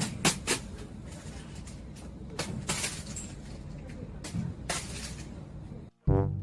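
Steady background noise with a few sharp knocks or clatters. Near the end it cuts out, and brass music with a trombone starts.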